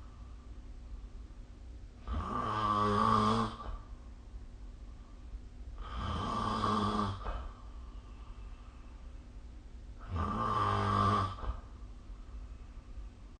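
A sleeping person snoring: three rough, pitched snores about four seconds apart, each lasting about a second and a half.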